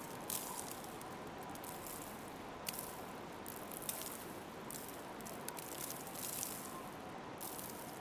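Footsteps crunching in snow at an uneven pace, soft and irregular, over a steady faint hiss of wintry outdoor ambience.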